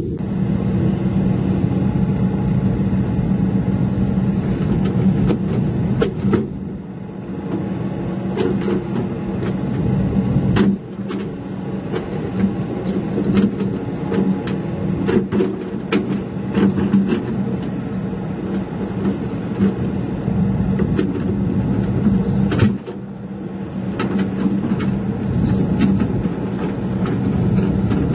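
Diesel engines of tracked heavy equipment, a crawler excavator and then a Komatsu D31E crawler bulldozer, running steadily with frequent short clanks from their steel tracks. The sound changes abruptly twice, about 11 and 23 seconds in.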